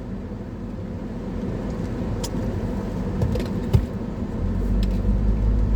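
Road noise inside a moving car: a steady engine and tyre rumble with a few light clicks, the low rumble growing louder in the last second or so.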